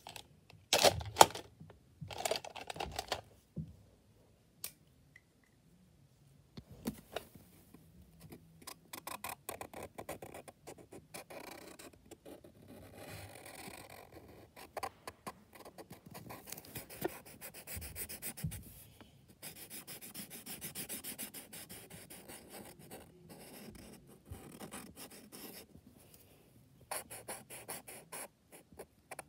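Felt-tip marker scratching on paper in quick, repeated back-and-forth strokes as it colours in a shape, with short pauses between runs of strokes. A few louder knocks and rustles in the first three seconds, the loudest about a second in.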